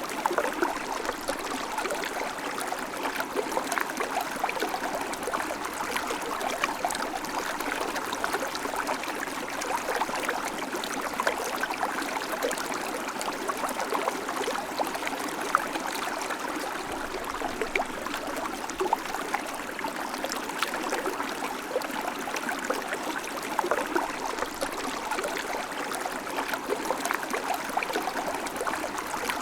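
River water flowing steadily over rocks, a constant rushing and babbling with small splashes throughout.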